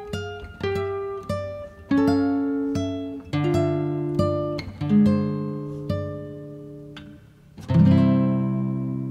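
Background music: acoustic guitar picked note by note, then a fuller chord struck near the end that rings out and fades.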